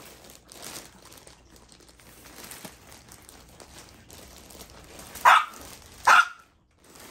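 A dog barking twice, two short sharp barks about a second apart, over faint rustling of plastic packaging.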